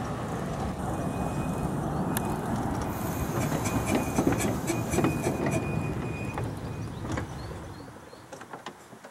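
10¼-inch-gauge miniature steam locomotive and its passenger coaches running past close by: a steady rumble of wheels on the track with rapid clicking over the rail joints and a faint high squeal, loudest in the middle and fading away near the end.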